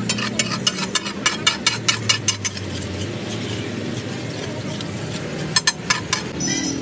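Metal spatulas clattering quickly on a hot tawa griddle as rice is mixed, about five strikes a second. The strikes pause for a few seconds of steady sizzling, then come back as a short burst near the end. A low steady hum runs underneath.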